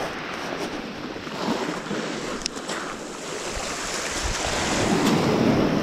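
Sea surf washing in, a steady rush of waves with some wind on the microphone.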